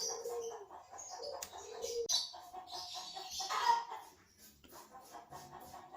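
Chickens clucking, a series of short calls, with scattered small clicks mixed in.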